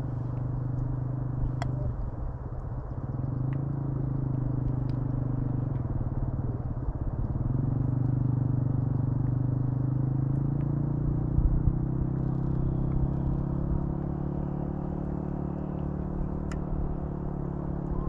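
An engine running steadily with a low, pitched hum; its pitch shifts a couple of times and rises slightly about eight seconds in. A few faint sharp clicks over it.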